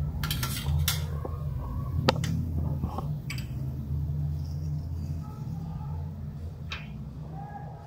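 Light clicks and taps from hands and utensils on a steel plate as poppy seeds and pistachios are sprinkled onto a freshly fried malpua. The sharpest taps come about two seconds in and again near the end, over a steady low hum.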